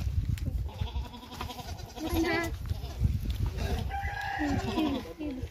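A rooster crows twice in long drawn-out calls, while a newborn goat kid gives short wavering bleats between and after the crows.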